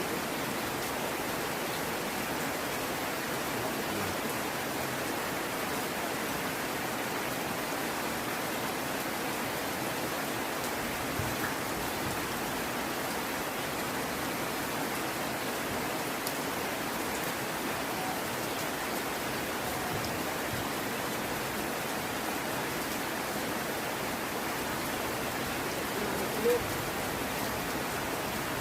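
Steady heavy rain falling as an even wash of noise, with a brief, louder knock about 26 seconds in.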